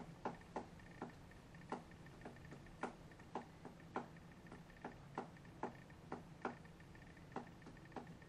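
Faint, irregular light clicks, about two a second, over a faint steady high hum.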